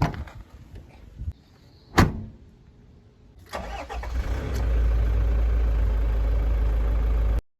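A sharp click about two seconds in, then a Toyota Land Cruiser 70's engine is started: a second of cranking as it catches, then it idles steadily with a heavy low rumble, cut off abruptly near the end.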